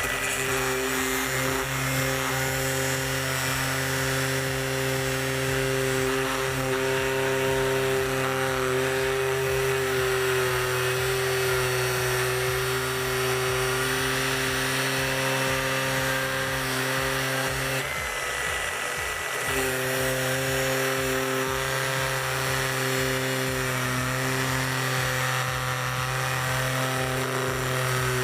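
Makita GA006G cordless angle grinder running at a steady speed with a constant whine. The whine breaks off for a second or two about two-thirds of the way in, then picks up again. Background music with a beat plays underneath.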